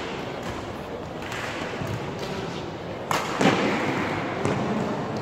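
Badminton rally: sharp racket-on-shuttlecock hits, and a heavy thud about three and a half seconds in as a diving player lands on the court floor.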